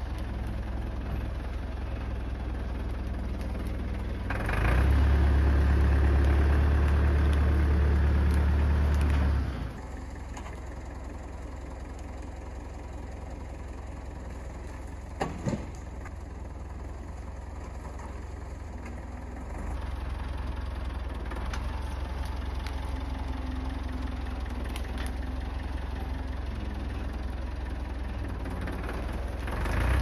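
Massey Ferguson MF 30/34 industrial tractor engine running. It goes louder and steady from about four to nine seconds in, then drops quieter for about ten seconds with two sharp knocks in the middle, then picks up again and revs up near the end.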